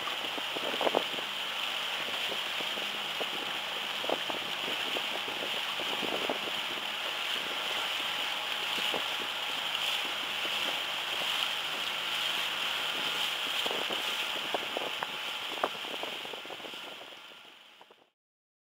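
Small fishing boat's tiller-steered outboard motor running steadily under way, mixed with wind on the microphone and water rushing past the hull. The sound fades out near the end.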